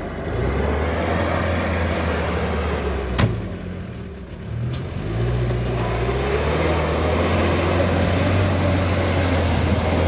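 UAZ Bukhanka van's engine running hard under load as it churns through deep mud and meltwater. A sharp click about three seconds in, then the revs sag briefly and climb again, held high to the end.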